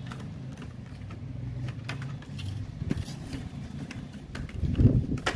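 Clear plastic packaging of a pencil box handled and turned over in the hands: scattered clicks and taps of the plastic over a low steady rumble, with louder knocks near the end.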